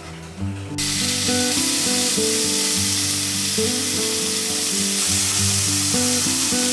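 Bacon strips sizzling in a hot nonstick frying pan, a steady crackling hiss that starts suddenly about a second in. Soft acoustic guitar music plays underneath.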